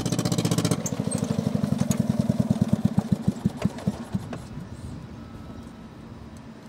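An engine running with a fast, even beat that slows, sputters and dies away over about four seconds.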